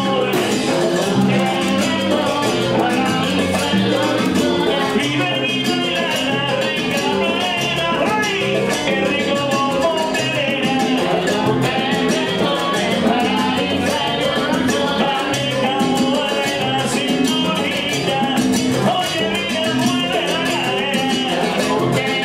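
Live salsa band playing, with congas and timbales in the rhythm section, loud and steady throughout.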